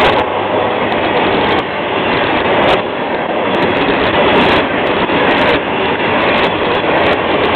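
Florida East Coast Railway freight train's open-top gondola and hopper cars rolling past close by: a loud, steady rumble of steel wheels on the rails with occasional sharp clanks.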